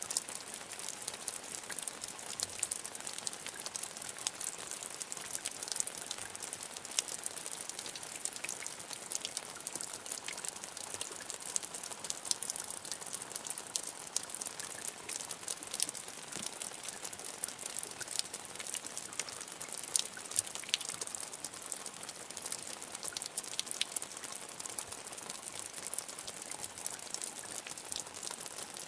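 Medium rain falling steadily, a dense hiss of many small drop ticks, with a few sharper drop hits standing out.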